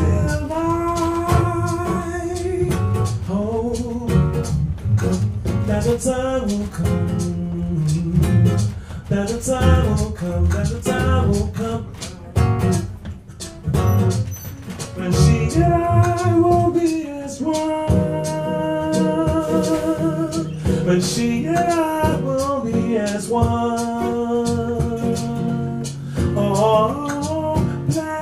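A man singing long held notes with vibrato over a fingerpicked nylon-string classical guitar, with a brief quieter dip about halfway through.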